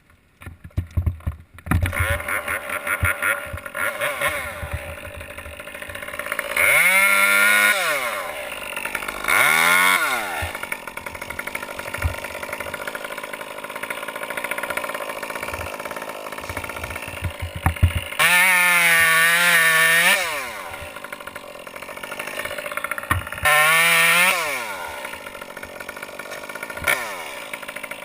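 Two-stroke chainsaw sputtering into life in the first two seconds, then idling between about five bursts of full throttle. Each burst rises sharply in pitch and falls back to idle; the longest, about two thirds of the way through, lasts about two seconds.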